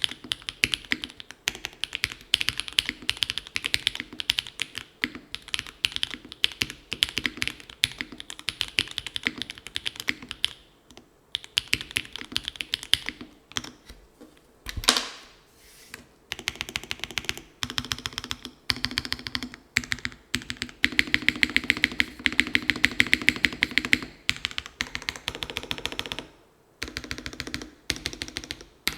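Haven 103 gasket-mounted mechanical keyboard with an aluminium plate, case and plate foam, Gateron x SW Modern Gray linear switches and GMK Rudy keycaps, typed on in quick runs of keystrokes broken by short pauses. About halfway through comes one louder single knock with a brief ring, and near the end the typing is at its fastest and loudest.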